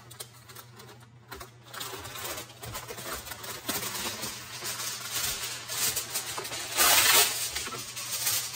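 Aluminium foil being pulled from its box and crinkling as the sheet is handled, then torn off with a louder rip about seven seconds in.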